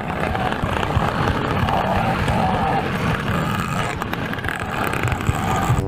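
Toy auto rickshaw rolling along a plastic toy track: a steady rumbling rattle of small wheels on the track.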